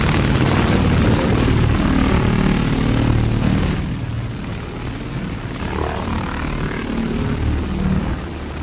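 2000 W QCW pulsed laser cleaning head ablating rust off an engine block: a loud, steady buzzing hiss with a pulsing low rumble, dropping a little in level about four seconds in.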